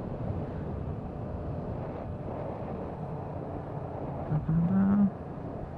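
Motorcycle riding along: a steady low engine rumble mixed with wind and road noise. A brief short hum rises near the end.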